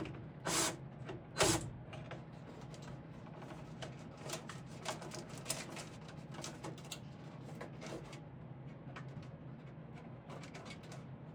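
Hands working with fire alarm wiring: scattered light clicks and rustles, with two short louder scrapes about half a second and a second and a half in, over a low steady hum.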